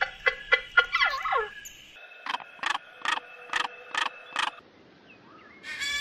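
A bird calling loudly in quick series: a burst of short notes sliding down in pitch, then six evenly spaced harsh calls at about two a second, and one more call near the end.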